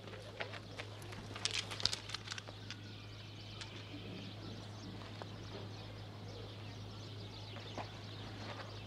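A cluster of sharp clicks and scuffs in the first couple of seconds, then quiet outdoor ambience with faint bird chirps over a steady low hum.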